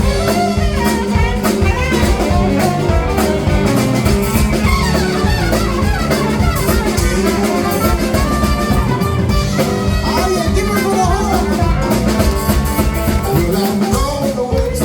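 Live blues band playing an instrumental passage: drum kit keeping a steady beat under guitar and horn lines.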